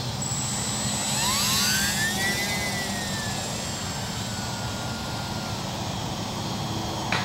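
E-flite UMX Yak 54 micro RC plane's small brushless electric motor and propeller whining at takeoff. The pitch rises steeply about a second in, peaks, then slides down and fades as the plane climbs away.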